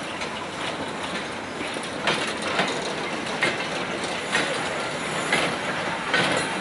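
Slow goods train of four-wheeled wagons rolling past: a steady rumble of wheels on rail with a sharp clack roughly every second as the wheels cross rail joints.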